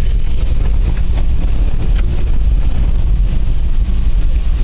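Kei truck driving over a rough dirt track, heard from inside the cab: a steady low engine and road rumble, with a few faint knocks and rattles from the bumps.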